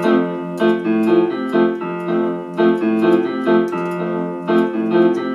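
Electronic keyboard on a string-piano voice playing F major chords (F, A, C) over a bass line, with the built-in merengue rhythm at 124 bpm; the chords are struck about twice a second with light percussion ticking along.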